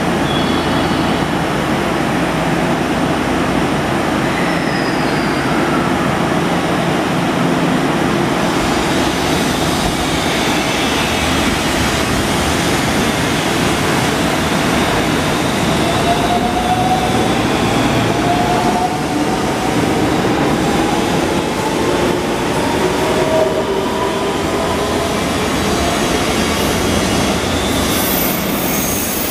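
IR Ishikawa Railway 521 series electric train pulling out: a steady rumble of wheels on rail, with the traction motors whining and the whine rising in pitch over several seconds as the train speeds up, about halfway through.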